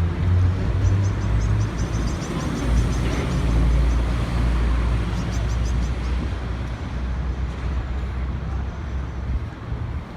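Street traffic: a motor vehicle's low rumble over a general road-noise haze, loudest in the first half and easing off toward the end. There are short runs of quick faint ticks twice.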